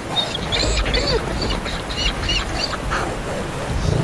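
A rapid run of short, high-pitched animal yelps, about eight to ten in under three seconds, like dogs yelping in a fight.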